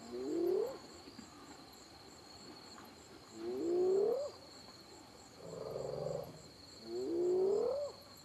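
Spotted hyena whooping: three rising calls, each about a second long and a few seconds apart, with a shorter, buzzier call between the last two.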